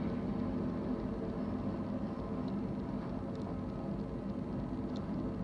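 Empty intermodal freight train rolling past: a steady rumble of wheels on rail, with a few faint high clicks.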